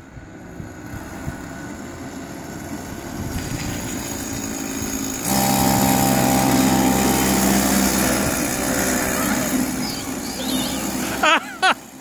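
Small single-cylinder kid kart engine running at a steady pitch, growing louder as the kart approaches, loudest as it passes close about five seconds in, then fading away. Two brief squeals near the end.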